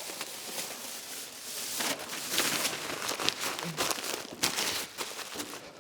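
Plastic damp-proof sheeting crinkling and rustling as it is handled, with many short sharp crackles.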